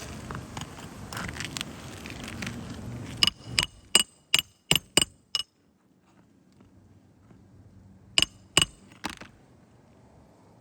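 A hammer driving roofing nails: a quick run of about seven sharp, ringing metal strikes, a pause, then three more near the end. Before the strikes there is a scratchy, rustling noise.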